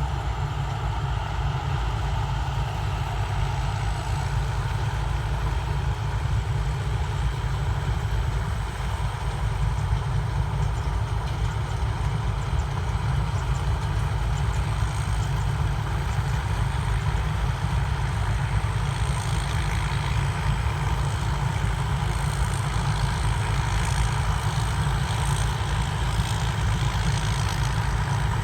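Rice combine harvester's turbocharged diesel engine running steadily under harvesting load, with a faint high, steady turbo whistle over the engine.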